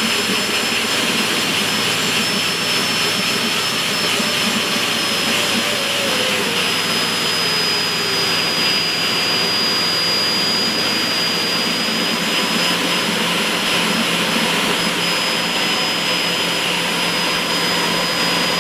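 Homemade combuster-fed turbocharger running like a small jet engine: a loud, steady rush with a high, constant turbine whistle over it. It is being fuelled through a single fuel injector during a fuel-flow test.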